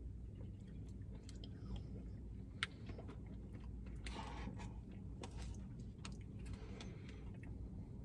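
Quiet eating of ice cream with plastic spoons: faint mouth and chewing sounds and scattered light clicks of spoon on cup, over a low steady hum.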